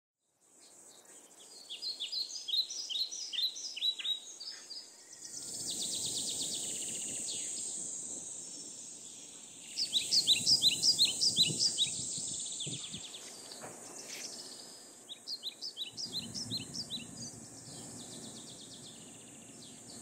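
A songbird singing three bursts of fast repeated high chirps, over a steady high-pitched insect buzz that comes in about five seconds in and faint low background rumble.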